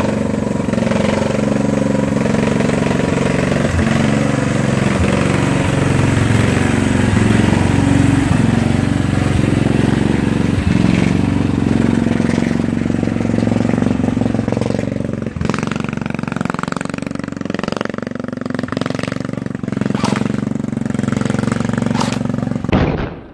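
Cub Cadet lawn tractor's small petrol engine running steadily as the tractor drives, with occasional sharp clicks over it. The sound cuts off suddenly near the end.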